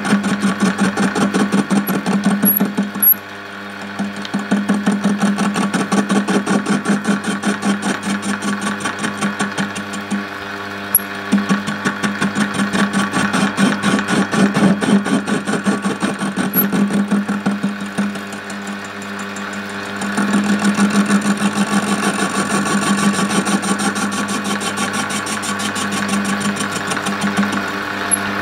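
Small hobby metal lathe running slowly, about 300 RPM, taking a dry facing cut across the end of a 3.5-inch home-cast aluminium billet: a steady motor hum with a rapid, regular pulsing from the cut. The cutting sound drops away for a moment three times, and the cut is going well.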